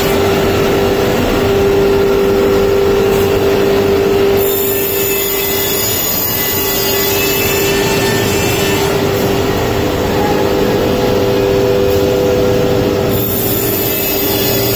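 Automatic saw-blade paper core cutting machine running: a steady, even machine noise with a constant mid-pitched hum.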